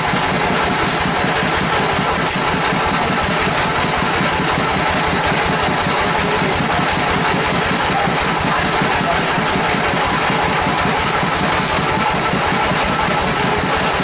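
A sawmill's engine running steadily at idle, unloaded while the log is still being positioned, with a dense, even low pulsing throughout.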